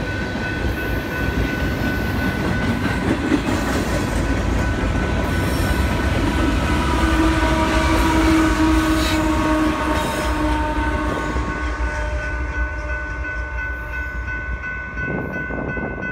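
Freight train rumbling past at a grade crossing, with the crossing bell ringing in a steady high tone. A locomotive at the tail of the train passes about halfway through and adds a pitched engine drone. The rumble dies away near the end as the last car clears the crossing, while the bell keeps ringing.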